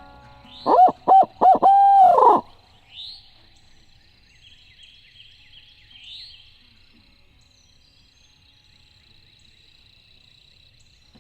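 Barred owl hoots: three short, rising-and-falling hoots and then a long drawn-out hoot that slides down and ends about two and a half seconds in. After that, faint chirps and twitters of small songbirds.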